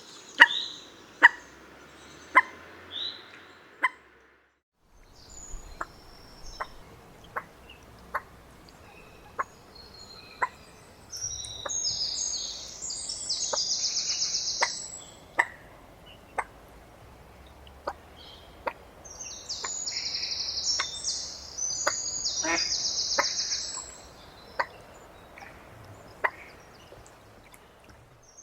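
Common moorhen giving short, sharp clicking calls, several in quick succession at first, then singly about once a second, with a break about four to five seconds in. Twice, a high chattering bird song runs for a few seconds over the calls.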